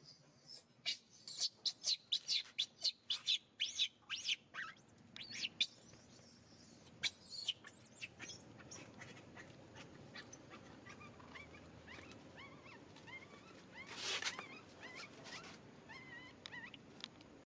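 Baby pigtail macaque screaming: a rapid run of short, very high-pitched, arching squeals for about eight seconds, then fainter chirping cries with one louder squeal near the end.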